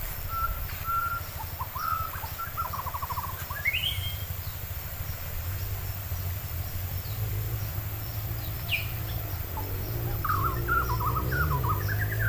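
Wild birds chirping and calling: short whistled notes and quick rising chirps scattered throughout, over a steady low rumble.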